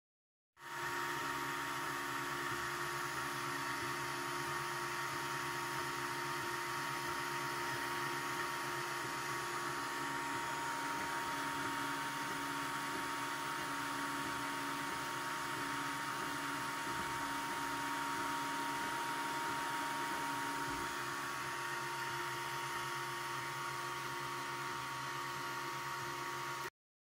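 Anycubic i3 Mega 3D printer running a print: a steady whirring hum of its cooling fans and motors, with a few steady tones and no vibration rattle. The fan vibration has been damped with fat double-sided tape on the cooler corners. The sound starts about half a second in and cuts off suddenly near the end.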